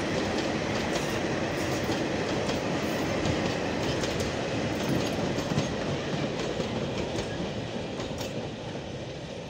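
Long freight train of tank wagons rolling past close by: a steady rumble and rattle of wheels on the rails with scattered clicks, fading slightly near the end.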